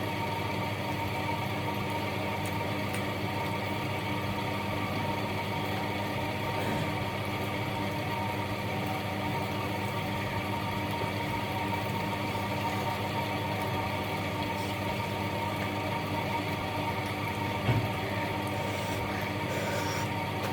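Steady mechanical hum with a faint whine, unchanging throughout, and a single soft knock near the end.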